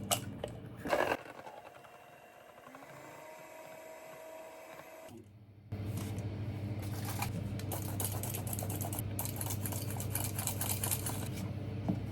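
A few clicks and knocks, then about six seconds in an electric kitchen mixer switches on and runs steadily with a busy rattle, mixing cake batter.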